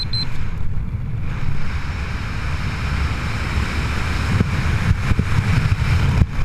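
Wind rushing over the camera microphone under an open parachute canopy, a steady loud rumble. A fast string of high electronic beeps stops just after the start.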